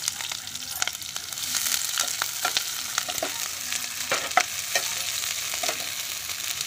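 Sliced onions and green chillies sizzling in hot oil in a kadhai, with a steady hiss. A steel spoon stirs them, scraping and clicking against the pan at irregular moments.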